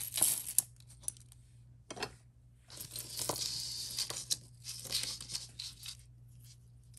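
Crinkling and rustling of packaging being handled, in several short bursts with the longest about three to four seconds in, with a few small clicks among them.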